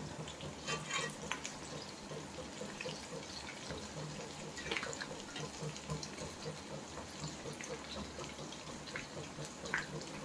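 Aloo bondas deep-frying in hot oil in a kadhai: a steady bubbling sizzle with scattered small pops and crackles.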